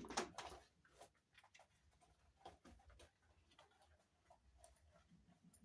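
Faint handling sounds as items are taken out of a suitcase: scattered light taps and brief rustles, the loudest fading away in the first half-second.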